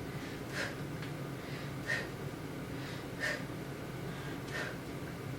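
A woman's short, sharp breaths out, four of them evenly spaced about 1.3 seconds apart, timed with the exertion of each leg swing during a workout warm-up.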